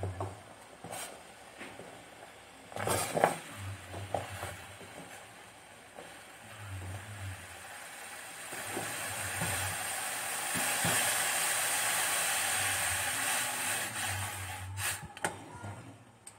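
Colostrum milk heating in a steel pot on the stove, hissing and sizzling as it comes up and foams; the hiss builds over several seconds, then drops away near the end, when a spoon knocks a couple of times against the pot.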